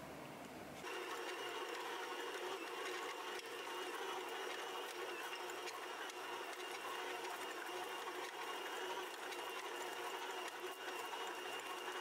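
Stand mixer motor running at a steady speed with its dough hook kneading bread dough in a metal bowl. The hum starts about a second in.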